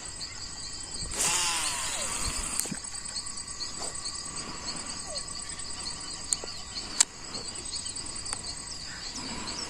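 Insects chirping steadily in a fast, pulsing high-pitched rhythm. About a second in there is a louder rush of noise lasting a little over a second, and a couple of sharp clicks follow later.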